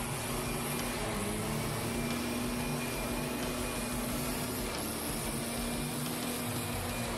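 Gas-powered backpack leaf blower running steadily: a constant engine hum under a rush of blown air.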